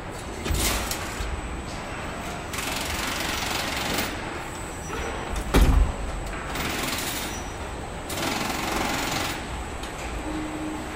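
Car assembly line noise while the chassis is fitted: four short bursts of air-tool hissing over a steady machine background, with one loud knock a little after the middle.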